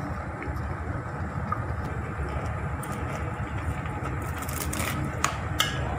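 Steady low rumble of a ship's engine running, with a few sharp metal clinks of a ladle against a steel pot in the last couple of seconds.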